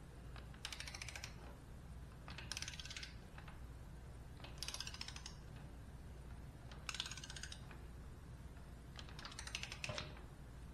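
Ratchet wrench fitted with a 6 mm hex bit, clicking quickly on its back-strokes as a forward-control mounting bolt is run down before being torqued. The clicking comes in five short bursts, one every couple of seconds.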